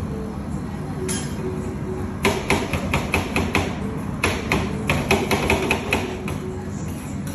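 Metal spatulas chopping a chocolate bar into rolled-yogurt ice-cream base on a steel cold plate. The spatulas make a rapid run of sharp metal clacks, about four or five a second, starting about two seconds in and stopping around six seconds.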